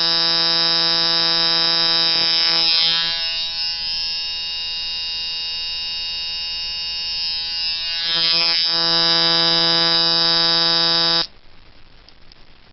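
Coil tattoo machine set up as a fast liner, running at 5.5 volts with a medium throw: a steady electric buzz. It goes quieter and thinner for several seconds in the middle, returns to full strength, and cuts off suddenly near the end.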